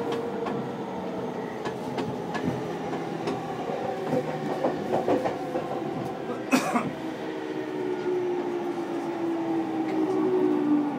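Commuter train heard from inside the car: steady running noise with wheels clicking over rail joints. About six and a half seconds in there is a brief loud rush as another train passes on the next track, and then the motors' whine falls slowly in pitch as the train slows into a station.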